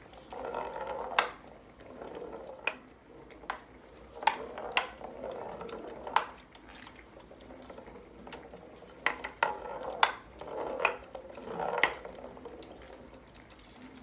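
Sharp knocks and clatter on a small wooden tabletop soccer board as two green-cheeked conures scramble over it and push the little ball about, irregular and spaced a second or so apart, with softer scuffling between them.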